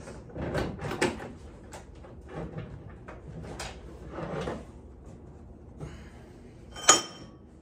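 Knocks and clicks of handling as a VW Beetle's one-piece tilt front end is unpinned and lifted, then a sharp clank with a brief metallic ring about seven seconds in.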